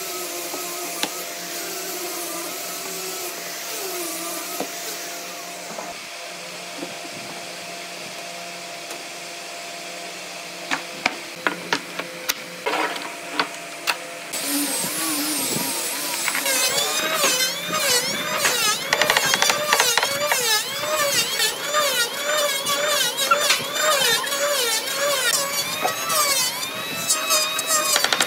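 Woodworking tools working on wood: a steady hum for the first half, a handful of sharp knocks in the middle, then a louder, busier stretch of wavering, shifting tones with rapid clicks.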